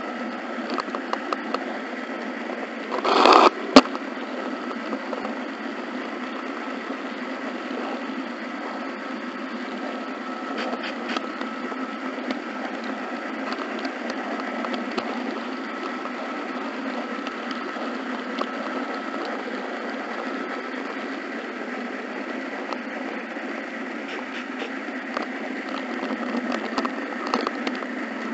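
HO scale model train running along its track, heard from a camera riding on it: a steady running rattle of small wheels on rail with a thin steady whine. About three seconds in it briefly gets louder and ends in a sharp click.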